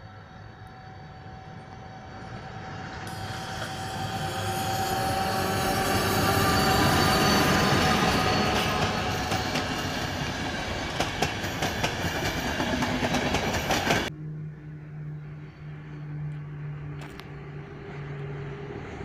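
Locomotive-hauled passenger train passing close by, its rolling noise building to a peak about halfway through, with wheels clicking over rail joints as the coaches go past. About two-thirds of the way in it cuts to a quieter, more distant approaching train whose locomotive gives a steady hum.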